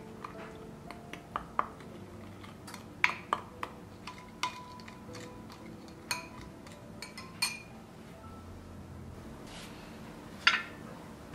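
Metal spoon clinking and scraping against a glass bowl while stirring a thick chili sauce, in scattered clinks a second or so apart. About ten and a half seconds in comes a louder glassy knock as a small glass bowl is handled on the counter.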